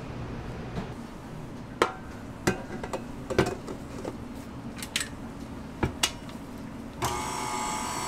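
Sharp metal clanks and knocks as a stainless steel bowl and wire whisk are handled and fitted on a KitchenAid Artisan tilt-head stand mixer. About seven seconds in, the mixer's motor starts and runs steadily with a whine.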